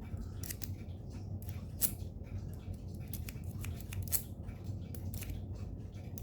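Irregular light metallic clicks and scrapes of a diamond pick raking and setting the pins inside a laminated Master Lock padlock, held under tension; a low steady hum underneath.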